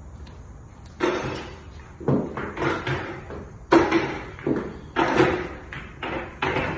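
Pool balls clacking against each other and against a clear plastic container as they are dropped in a few at a time: a run of about ten sharp, irregular knocks.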